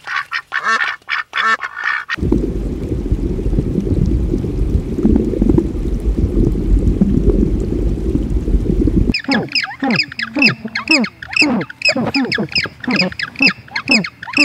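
White domestic ducks quacking in quick succession for about two seconds. Then a steady low rumble with no calls. From about nine seconds in, a group of African penguins calling over one another in rapid honks, each falling in pitch.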